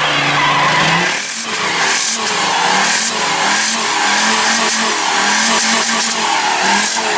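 Mercedes-Benz C-Class saloon doing a burnout: the rear tyres spin and squeal on the asphalt while the engine is held at high revs, its note dropping out and coming back every second or so. Before that, for about the first second, a car engine runs at steady revs.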